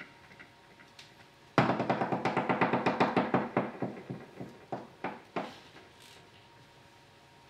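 A fast run of tap-shoe steps on a wooden tap board starts suddenly about a second and a half in, then fades and slows into a few separate taps before stopping.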